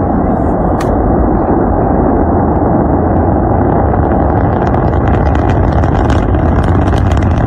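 Rocket exhaust roar: a loud, steady, deep rumble, with sharp crackling joining in about halfway through.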